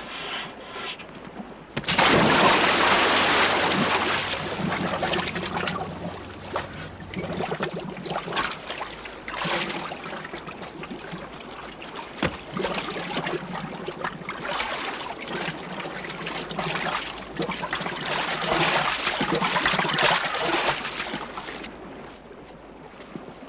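Sea water splashing: a sudden loud splash about two seconds in as a scuba diver drops off the boat's stern into the sea, then uneven sloshing and bubbling that stops suddenly near the end.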